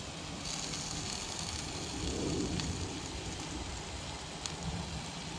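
Burgers and onion slices sizzling on a cast iron griddle over low heat: a steady crackling hiss, with a couple of faint ticks.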